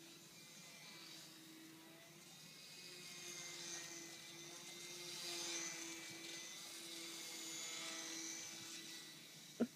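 Faint buzz of the E-flite UMX Carbon Cub micro RC plane's electric motor and propeller in flight, the high whine swelling and fading as the plane passes over. A single sharp click just before the end.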